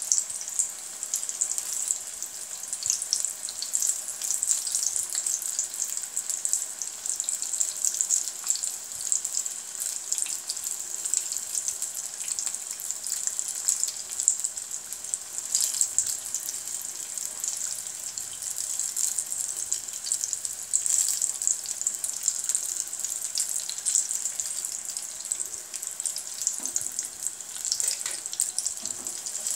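Sweet potato toffees deep-frying in a pan of hot oil: a steady, crackling high-pitched sizzle.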